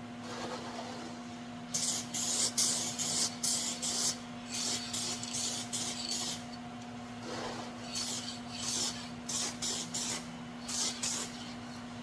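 Aerosol spray paint can sprayed in a quick run of short hissing bursts, starting about two seconds in, over a faint steady hum.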